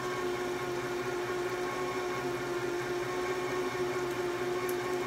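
Small electric motor of a countertop electric can opener running steadily with an even hum.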